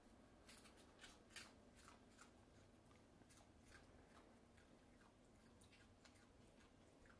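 Faint, irregular crunching clicks of an opossum chewing popcorn, busiest in the first couple of seconds and sparser after.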